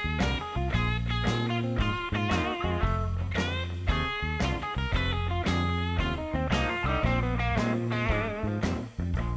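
Background music led by electric guitar, with bent and wavering notes over a steady bass and beat; it drops out for a moment near the end and comes straight back.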